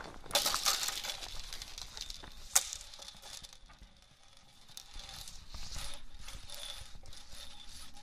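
Hula hoop being spun around the body: an uneven swishing, with a sharp click about two and a half seconds in and a brief lull about halfway.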